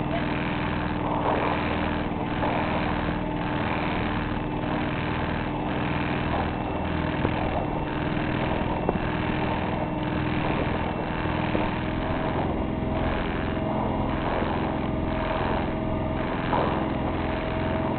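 Sailboat's auxiliary engine running steadily while the boat motors along, with water rushing past the hull. About twelve seconds in, a higher steady tone joins the hum.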